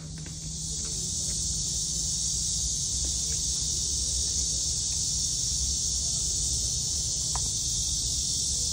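Steady chorus of insects, such as cicadas, a dense high hiss that swells in over the first half second and then holds unbroken, over a low rumble.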